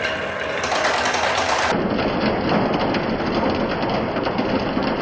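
Many marbles rolling and clattering along wooden marble-run track, a dense continuous rattle of small clicks that turns duller abruptly under two seconds in.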